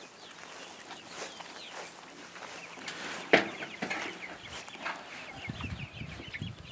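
A flock of young chickens chattering: many short falling chirps, overlapping steadily. A single sharp knock about three seconds in, and low rustling thumps near the end.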